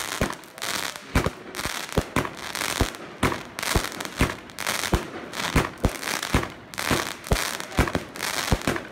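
Evolution Fireworks Ice Queen 42-shot cake firing shot after shot, about two a second. Each launch thump is followed by the hiss and crackle of the silver titanium chrysanthemum bursts.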